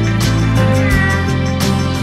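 Background music: sustained low notes under an even beat, with a short high sliding note about halfway through.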